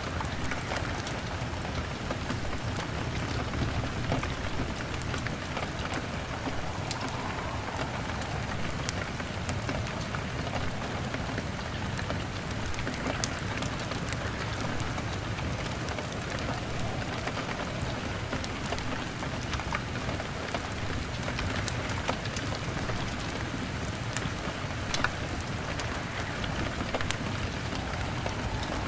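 Rain falling steadily on a window, mixed with a crackling log fire: an even hiss with frequent small sharp clicks and pops scattered throughout.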